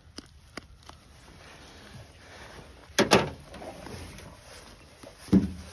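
A few light clicks, then a sharp double thump about three seconds in and another thump near the end, as a sandhill crane carcass is turned over and handled on a truck bed.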